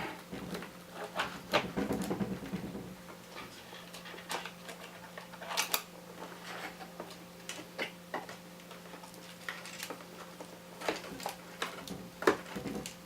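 Scattered light clicks and knocks of hands handling and fitting the logic board and parts inside an opened iMac, with denser rustling handling noise in the first few seconds, over a faint steady hum.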